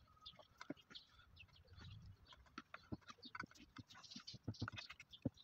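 Faint, irregular soft taps and clicks of raw eggplant slices being picked up from a wooden cutting board and laid one after another into a glass baking dish.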